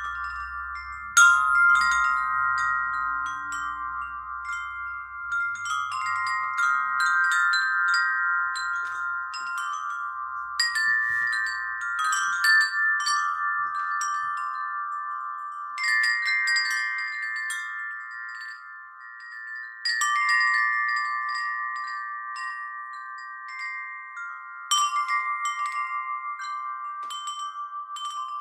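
Wind chimes ringing: clusters of metal strikes every few seconds, their bright overlapping tones hanging on and slowly fading between strikes.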